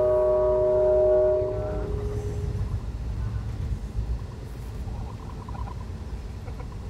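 Low, steady rumble of a moving vehicle heard from inside, with a held chord of several steady tones that fades out about two seconds in.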